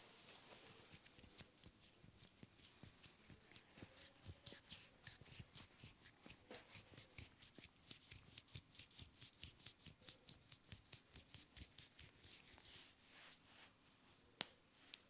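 Quick rhythmic head-massage strokes, a barber's hands striking and brushing the head and hair about three to four times a second, then a single sharp snap near the end.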